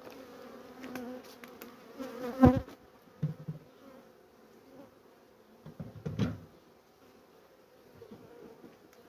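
Honeybees buzzing steadily over a freshly opened hive full of honey frames. Two brief louder sounds stand out, about two and a half and six seconds in.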